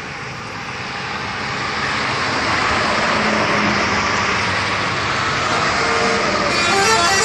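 A bus passing close on the highway, its engine and tyre noise swelling as it nears; about six and a half seconds in its telolet horn starts, a quick run of changing tones.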